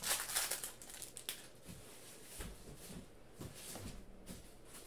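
Crinkling and tearing of a foil trading-card pack wrapper, loudest in the first second or so, followed by softer rustling and light bumps of cards being handled.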